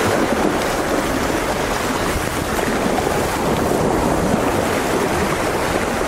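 Small sea waves washing over shore rocks, a steady surf noise.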